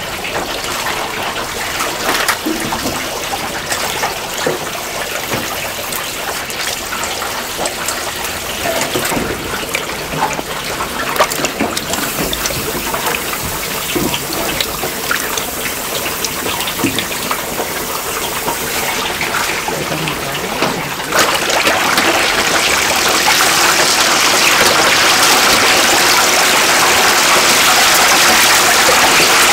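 Running water splashing, with small knocks and clatter of things handled in it. About 21 seconds in, a louder, steady rush of water starts.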